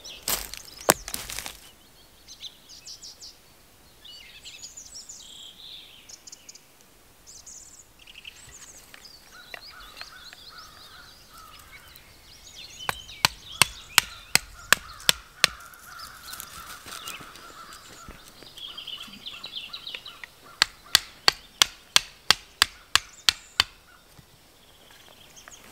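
A wooden stake being hammered into the ground with a hatchet: sharp knocks at about four a second, in two runs of roughly eight and eleven strikes.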